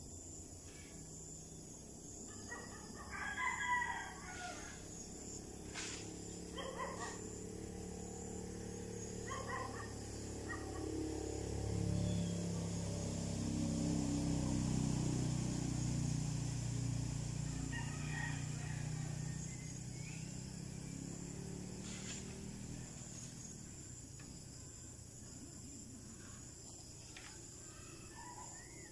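A rooster crows, loudest a few seconds in, with shorter calls later on. A low drone swells through the middle and fades away.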